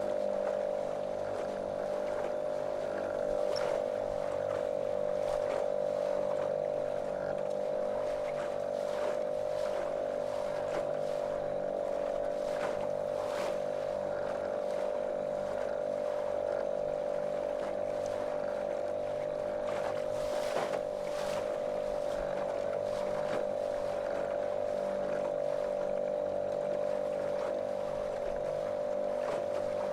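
Small motorboat's outboard motor running at a steady cruising speed, one unchanging drone, with the hull's water splashing over it.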